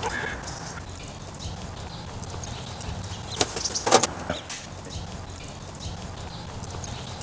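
The lid of a grey curbside metal mailbox being opened: a sharp click about three and a half seconds in, then a louder cluster of metallic clicks and a clank around four seconds in, over a steady low outdoor rumble.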